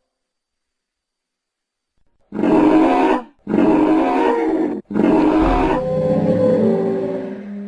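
Sound-effect calls made for the duck-billed dinosaur Kritosaurus: about two seconds of silence, then three deep animal calls in quick succession. The third is the longest and fades into a steady low hum.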